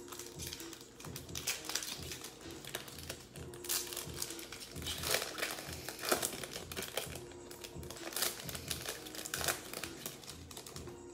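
Panini Mosaic football card pack wrappers crinkling and crackling as packs are pulled open by hand, in irregular bursts, with faint background music under them.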